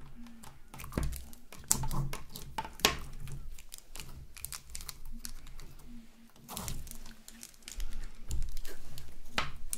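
Clear and green slime pressed, lifted and stretched by hand with long acrylic nails, making irregular sticky clicks and pops. The clicking is louder about a second in and again through the second half as the slime is pulled and stretched.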